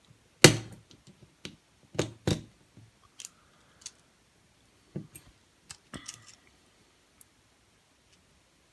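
Metal clicks and knocks from a padlock and its tools being handled during disassembly, the loudest about half a second in, a pair around two seconds and a few more near five and six seconds.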